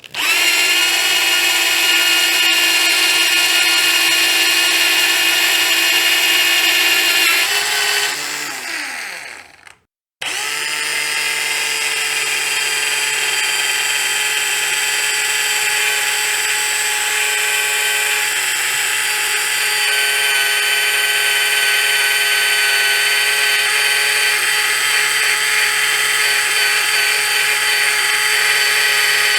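Electric power drill motor running with a steady whine. About seven and a half seconds in it is released and spins down to a stop. About ten seconds in it is triggered again and runs steadily on.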